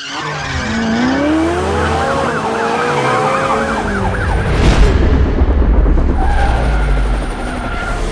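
Car sound effects: an engine revving, its pitch climbing steadily over the first few seconds, over a constant low rumble.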